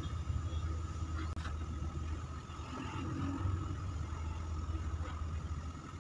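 Steady low motor hum with a faint steady whine above it, and a couple of light taps about a second in.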